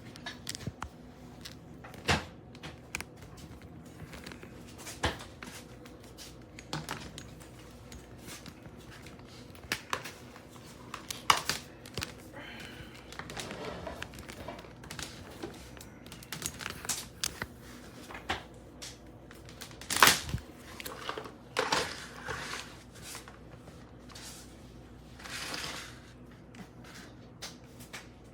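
Irregular clicks, knocks and brief rustling and crinkling of objects being handled, with the loudest knock about twenty seconds in; no vacuum motor is running.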